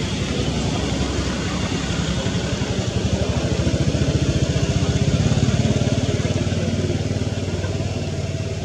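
A motor vehicle's engine running close by, with a fast low pulsing, growing louder to a peak about five seconds in and then easing off.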